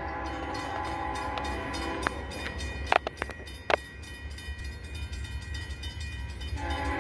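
Diesel locomotive horn of an approaching CSX freight train, sounding a long blast that stops about two seconds in and starts again near the end, over a low steady rumble. A few sharp clicks come in the middle.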